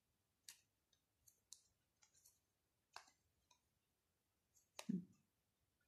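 Near silence with a few faint, sharp clicks scattered irregularly, and a short hum of the voice about five seconds in.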